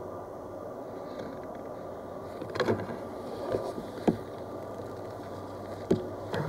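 Handling noise from an airsoft rifle with a scope camera mounted on it: a steady low rustle with a few sharp knocks and clicks as the rifle is shifted behind cover.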